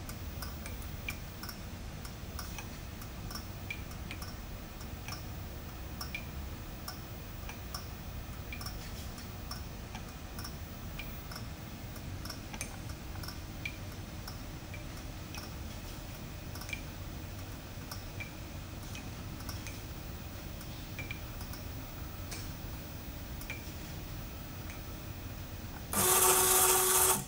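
Axis drives of a ProtoTrak K3 CNC knee mill moving the table and knee through a program with the spindle off: a quiet, steady low hum with faint ticking at roughly one tick a second. Near the end a loud burst of noise lasting about a second.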